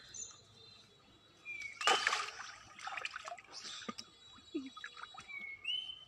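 Pond water splashing and sloshing as a cat is dipped and washed, in irregular bursts with the loudest about two seconds in. A few short high chirps sound over it.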